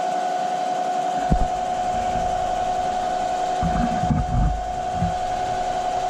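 Bridgeport EZ Trax milling machine running without cutting, a steady mechanical whine. A sharp knock comes about a second in, and a few low thumps around the four-second mark.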